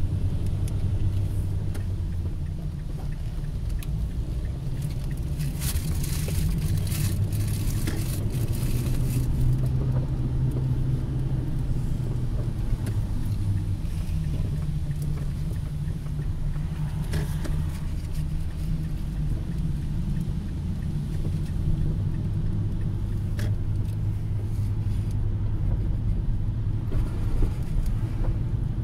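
Car driving on city streets, heard from inside the cabin: a steady low rumble of engine and tyres on the road, with a few light clicks a little way in.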